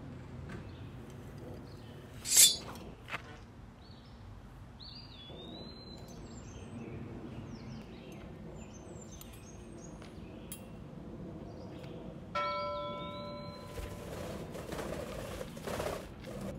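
Steel sword blades clanging: a sharp clash about two seconds in, then a ringing metallic strike about twelve seconds in that fades over a second or so. Small birds chirp in the background.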